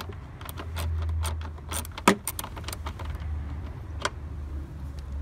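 Quick irregular run of sharp metallic clicks and clinks from a 10 mm wrench working a harness-bracket fastener, with a single click about four seconds in, over a low steady rumble.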